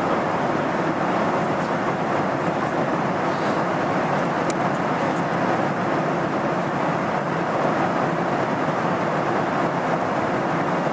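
Steady cabin noise of a jet airliner in cruise, the even rush of airflow and engines heard from a window seat inside the cabin. A faint tick sounds once about four and a half seconds in.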